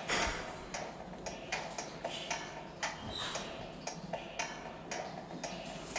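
A steady rhythm of light ticks, about two to three a second.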